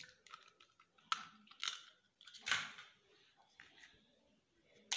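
Eggs being cracked and dropped into a bowl of flour, milk and mashed banana: a few short crackling sounds of breaking shell, then quiet.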